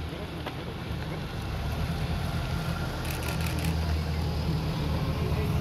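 A convoy of SUVs driving slowly past: a low engine and tyre rumble that grows gradually louder as the vehicles come close.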